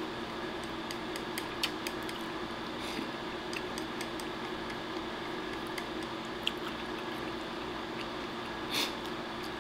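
Chopsticks tapping and scraping against a ceramic rice bowl while eating, as light irregular clicks, with a brief hiss near the end, over a steady low hum.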